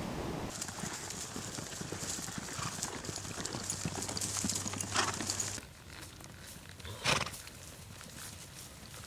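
Saddle horses walking, hooves clopping, with one brief louder burst of noise about seven seconds in.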